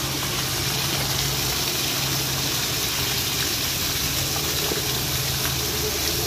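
Small water pump running with a steady low hum, water gushing.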